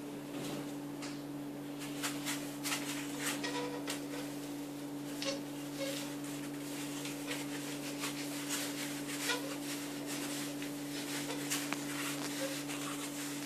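Handling noise from assembling a baby cradle: rustling fabric and scattered light clicks and knocks as frame tubes are pushed through the cradle's fabric sleeves, over a steady hum.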